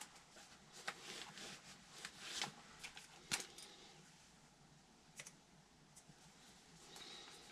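Faint, scattered clicks and light metallic rattles of small parts and hand tools being handled while a blower motor mount bracket is taken apart, with one sharper click a little past three seconds in.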